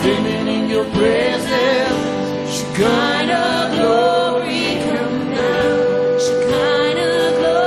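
Live church worship music: singing over band accompaniment, with a long note held steady through the second half.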